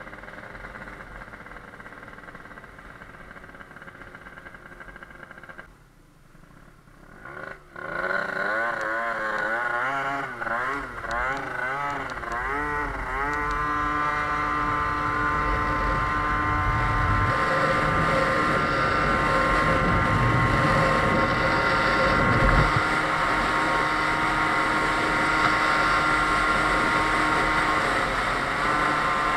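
Tuned two-stroke engine of a Sachs Speedjet RS scooter, fitted with a Stage6 MK2 cylinder and a Yasuni R exhaust, running while riding. It drops away briefly about six seconds in, then pulls hard about eight seconds in, its pitch wavering up and down for a few seconds. It then settles into a steady high-revving drone.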